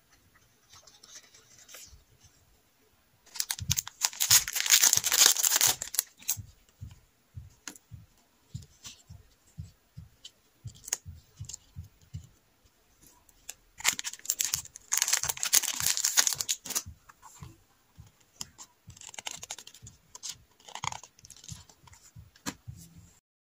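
Plastic sticker sheets and stationery packaging rustling and crinkling as they are handled. There are two loud bursts about four and fifteen seconds in and a softer one near twenty seconds, with light taps and clicks between.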